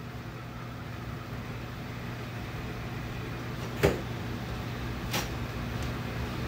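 Steady hum of a room air conditioner, with two short sharp knocks, one about four seconds in and another just after five seconds.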